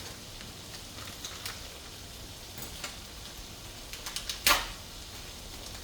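Browned ground beef sizzling faintly in a skillet, with scattered light clicks and one short, sharp rustle about four and a half seconds in.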